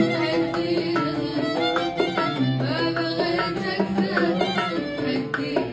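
Khaleeji song played on oud, violin and hand drums: plucked oud notes and a bowed violin line over a steady, quick drum pattern.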